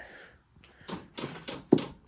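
Fuel pump of an 8 kW Chinese diesel air heater starting to tick, with several sharp clicks beginning about a second in, as it begins pulsing fuel during start-up.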